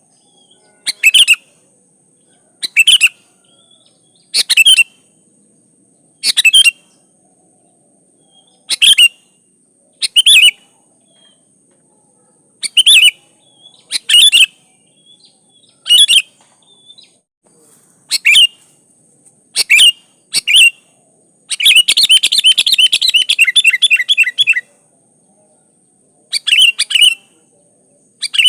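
Sooty-headed bulbul (kutilang) singing: short, loud whistled phrases repeated every second or two, then a rapid chattering run of about three seconds near the end.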